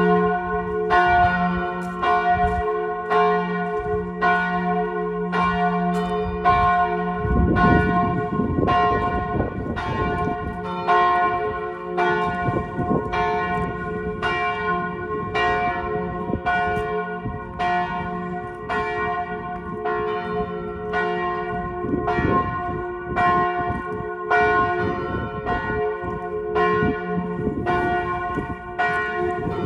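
Church bells tolling the death knell: the big bell swinging in full peal, with tolled strokes on a smaller bell. The strokes come evenly, a little more than one a second, each ringing on into the next.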